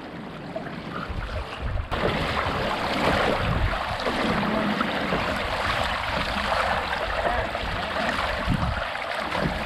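Steady rush of water along the hull of a moving tandem kayak, louder and fuller from about two seconds in.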